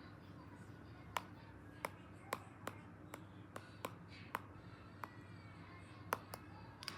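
A dozen or so light, sharp taps and clicks at irregular intervals, like fingers or a fingernail tapping on a hard surface, over a faint steady hum.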